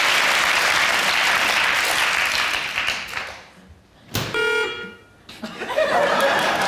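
Studio audience applauding, fading out about three seconds in. About a second later comes a short, steady, horn-like toot lasting about a second, then softer audience noise near the end.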